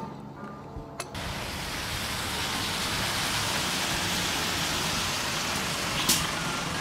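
A light music track cuts off about a second in, giving way to a steady rush of city bus and traffic noise on a wet street. About six seconds in, the bus lets out a short burst of air hiss from its air brakes.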